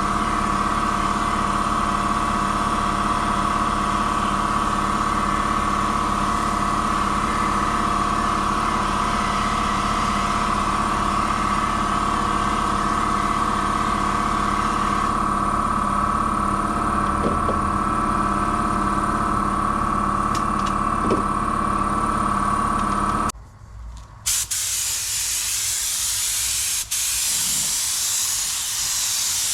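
A steady machine drone with a strong hum runs until it cuts off abruptly about 23 seconds in. About a second later a steady hiss of compressed air through a paint spray gun starts up, as clear coat is sprayed.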